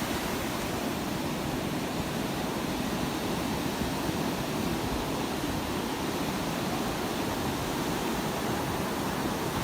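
Ocean surf washing onto the beach: a steady rushing noise with no breaks.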